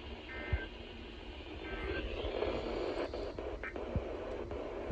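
Hiss and static of a radio receiver on a weak broadcast, with faint, indistinct voice under the noise and two brief high tones in the first two seconds.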